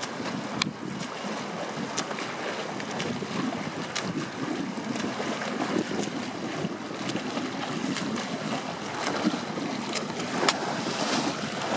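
Wind rushing on the microphone and sea water washing against a moving boat, with a few brief sharp splashes.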